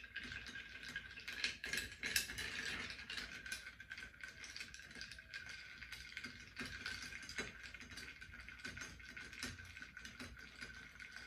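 Bar spoon stirring ice cubes in a rocks glass: a continuous light clinking and rattling of ice against the glass as the cocktail is stirred to chill it.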